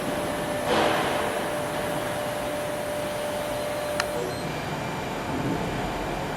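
WDS-620 BGA rework station running with a steady whir of blowing air, a steady hum alongside it that cuts off with a click about four seconds in.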